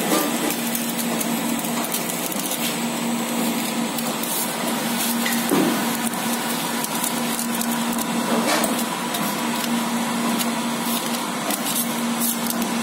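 Bottle filling and capping line running: a steady hum under a constant noisy whir, with scattered light clicks and rattles of the slat-chain conveyor carrying capped plastic bottles.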